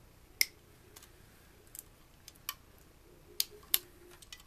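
Wire cutters snipping through the wires on a CRT television's neck circuit board: a string of sharp snips at uneven intervals, the loudest about half a second in and near the end.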